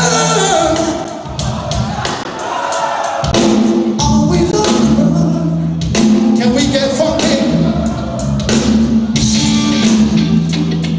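Live rock band playing: a male lead vocal sings over electric guitar, bass and drums. The bass and drums drop back for about two seconds near the start, then the full band comes back in.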